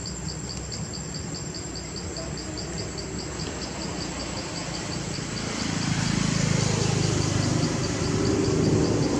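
Insects chirping in an even pulse, about four or five chirps a second, over a steady high whine. About six seconds in, a low vehicle engine rumble grows louder.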